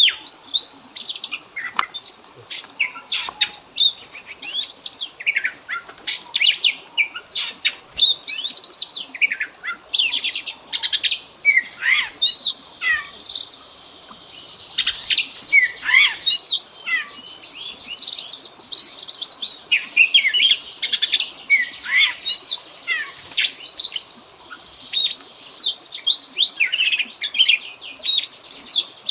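Oriental magpie-robin (kacer) singing a dense, fast stream of varied whistled phrases, chirps and sharp up-and-down notes, mixing in mimicked calls of other birds. There are brief lulls about halfway through and again near the end.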